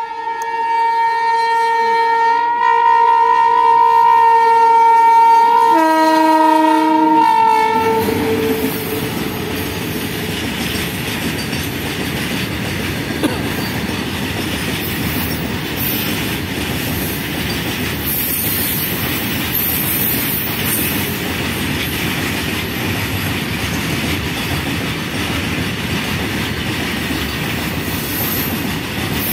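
Freight train's horn sounding one long blast that shifts in pitch about six seconds in and stops about two seconds later. Then the train's open wagons roll past with a steady rumble and clatter of wheels on the rails.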